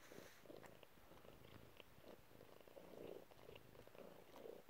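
Domestic cat purring faintly, the purr swelling and fading in a steady rhythm with its breathing. Faint small clicks come from its tongue as it licks its paw.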